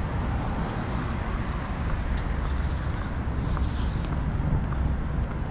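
Steady rumble of downtown street traffic, with a low engine hum growing stronger near the end.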